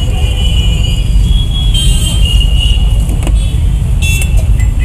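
Steady low rumble of a street cooking stall, from the gas burner under the omelette pan and road traffic, with faint high-pitched tones about two seconds in and near the end.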